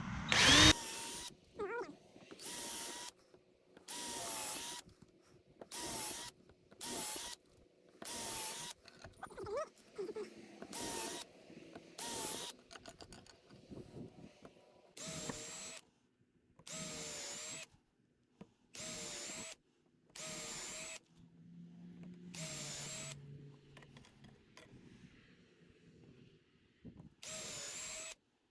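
Cordless drill boring pilot holes into 2x4 lumber with a small bit: about sixteen short bursts, each under a second, the motor whine dipping as the bit bites into the wood. The whine sits lower in the second half than in the first. A loud knock comes right at the start.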